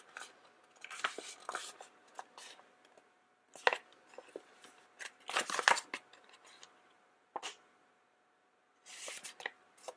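Paper collector's flyer handled and turned over in the hands: short, soft rustles and light taps in a few separate bursts, with quiet gaps between.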